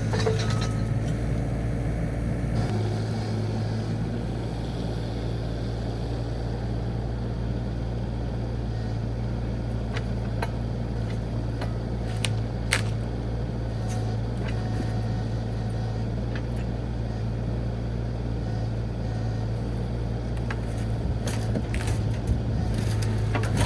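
Mini excavator's diesel engine running steadily, with a few short sharp knocks now and then.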